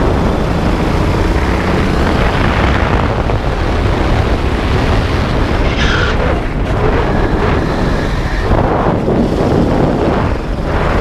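12 HP rental go-kart's engine running hard under throttle as the kart is driven round the track, heard from the driver's seat with heavy wind noise on the microphone. About six seconds in a brief higher-pitched sound rises over it.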